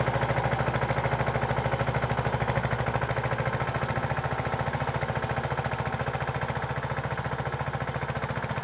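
Mahindra 215 mini tractor's single-cylinder diesel engine running under load with a fast, even chug, slowly growing quieter as the tractor moves away.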